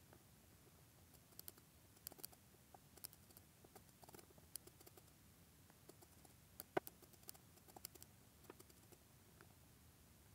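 Faint, irregular clicks of a computer mouse, one every half second to a second or so, with one clearly louder click about two-thirds of the way through.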